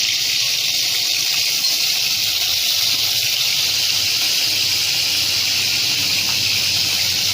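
Steady sizzling hiss of hot cooking oil in a heated kadai, even and unbroken throughout.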